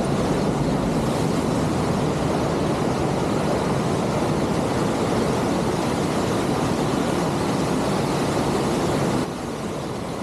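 Waterfall water rushing, a steady, even rush that drops in level abruptly about nine seconds in.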